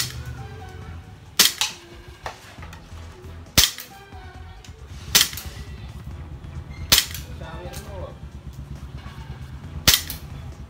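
Airsoft pistol firing single shots: six sharp cracks, spaced irregularly about one and a half to three seconds apart.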